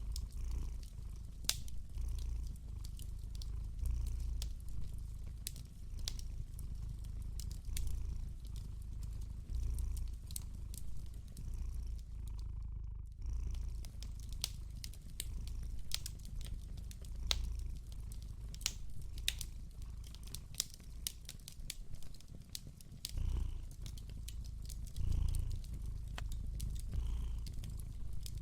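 A cat purring steadily, its low purr swelling and easing about every two seconds, with a fire crackling in scattered sharp pops over it.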